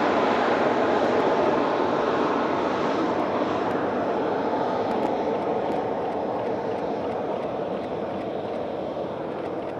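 Jet airliner's engines running with a steady rushing noise that slowly fades away.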